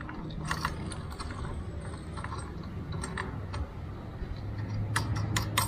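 Metal clicks and clinks of hand tools and bolts being worked on a motorcycle crash guard: a few scattered clicks, then a quicker run of sharp clicks near the end.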